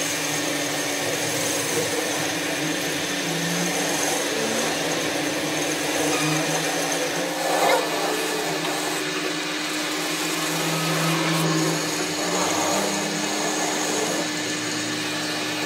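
Metal lathe running, its motor giving a steady hum and whine while the cutting tool works a threaded steel bar, with a brief louder swell about seven and a half seconds in.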